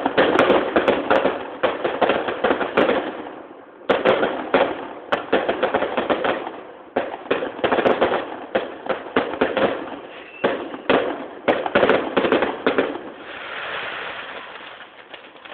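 Aerial fireworks exploding in rapid volleys of sharp bangs and crackles, in waves that start suddenly at the outset, about four seconds in and about seven seconds in. Near the end the bangs give way to a softer fizzing hiss that fades out.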